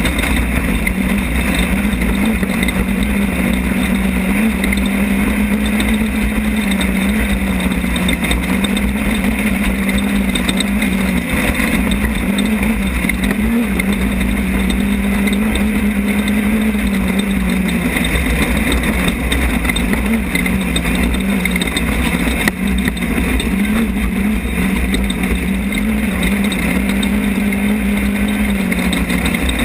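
Class 10 off-road race car's engine running hard, heard from on board. Its pitch rises and falls every few seconds as the revs change, over a steady rushing noise.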